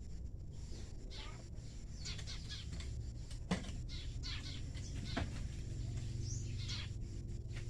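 Birds calling in repeated short, high, falling chirps over a steady low rumble, with two sharp clicks partway through.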